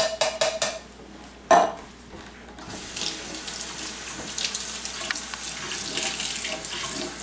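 A few knocks and clatter, then a kitchen tap turned on about three seconds in and running steadily into the sink, rinsing the canned black beans.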